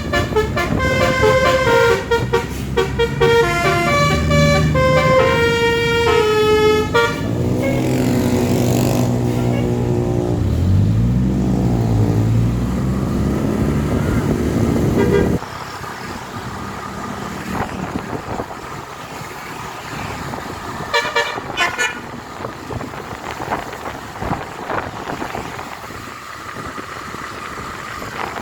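Tour bus's basuri musical air horn ("telolet") playing a quick melody of stepped notes, followed by gliding, wavering tones. About halfway through, the sound drops suddenly to quieter road and traffic noise broken by a few short horn bursts.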